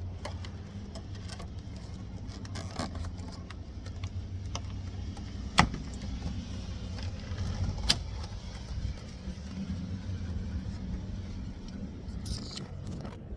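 Small clinks and clicks of parts being handled while a truck's interior door panel is refitted, with two sharper snaps a little past halfway, over a steady low rumble.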